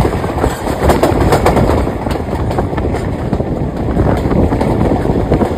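Passenger train rolling along, heard from one of its carriages: a steady rumble of wheels on the rails with a few sharp clicks in the first couple of seconds.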